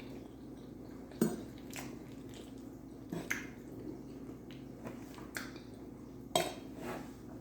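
Cutlery clicking and scraping against a dish a handful of times, with soft eating sounds in between. The sharpest clicks come about a second in and near the end.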